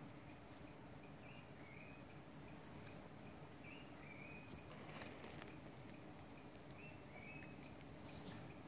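Faint forest insect chorus: a high, steady trill that swells and fades in several stretches, with a few short high chirps scattered through it.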